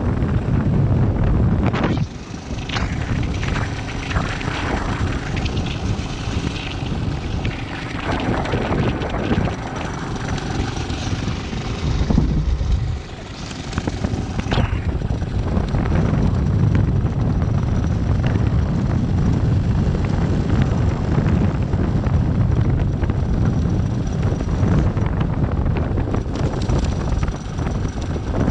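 Motorcycle engine running while riding along a dirt track, steady and loud, easing off briefly about two seconds in and again around thirteen seconds in.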